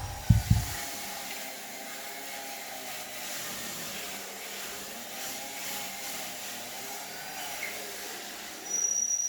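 Homemade wood lathe's motor running steadily with a slightly wavering whir. Two heavy knocks come right at the start, and a brief, louder high whine comes near the end.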